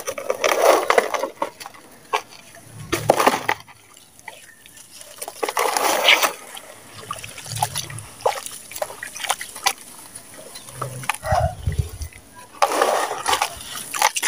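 A water-soaked gritty cement chunk being crumbled and squeezed by hand in a tub of water: wet sloshing and splashing with gritty crumbling, in several short bursts.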